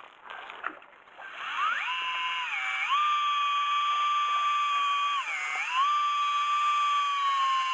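Electric fishing reel motor whining as it winds in: it spins up about a second in, runs at a steady pitch and sags in pitch twice as it strains, then begins to slow near the end.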